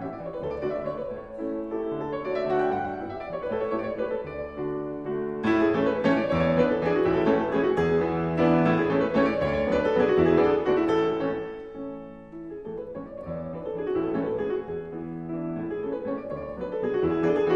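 Background piano music in flowing runs of notes that rise and fall, growing fuller about five seconds in and thinning briefly near twelve seconds.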